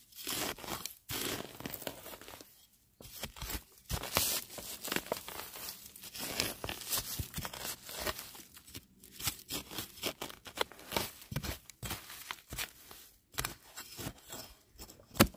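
A broad metal blade chopping and scraping into dry, root-filled soil to dig out a wild bamboo shoot: a steady run of irregular crunching and tearing strokes, with a couple of brief pauses and one sharp, louder strike near the end.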